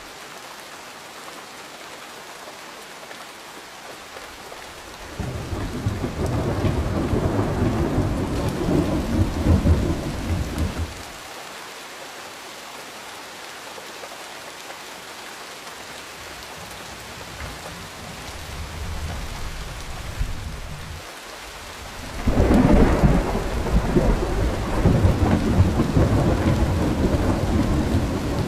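Thunderstorm: steady rain falling, with long rolls of thunder. One deep roll starts about five seconds in and lasts some six seconds, a fainter rumble follows, and a louder roll begins about two-thirds of the way through and carries on to the end.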